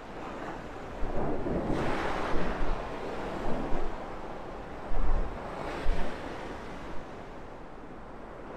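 North Sea surf breaking and washing up the beach. It swells a little after a second in and again around six seconds. Gusty wind buffets the microphone in low rumbles.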